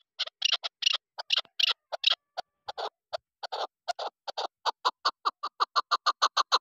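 Chukar partridge calling: a run of short clucking notes, irregular at first, then settling into a quick, even series of about six a second toward the end.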